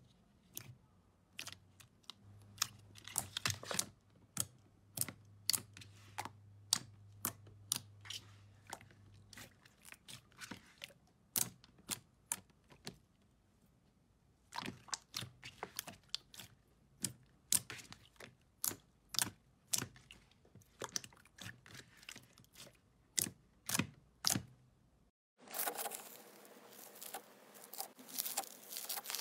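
Glossy pink slime being pressed, poked and stretched by hand, giving irregular sharp pops and wet clicks. About four seconds from the end this changes to a denser crackle from a crunchy blue slime packed with small beads being squeezed and pulled apart.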